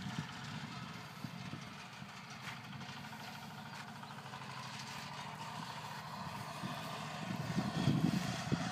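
Minitractor engine running steadily while mowing with a front-mounted rotary mower, a faint even hum. Low rumbling grows louder near the end.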